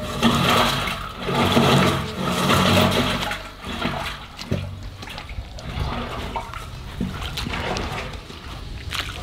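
Muddy water pouring and bubbling down into a square drain opening as a flooded pool is drained; louder for the first few seconds, then easing to a steadier trickle.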